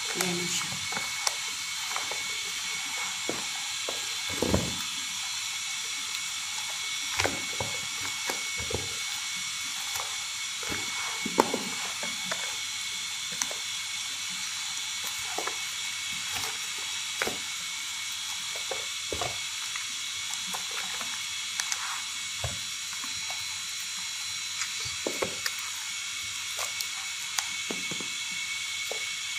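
A steady hiss in the kitchen with scattered clicks and knocks of utensils.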